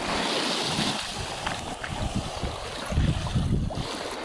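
Surf washing on a rocky beach, an even hiss, with wind buffeting the microphone in low gusts, strongest about three seconds in.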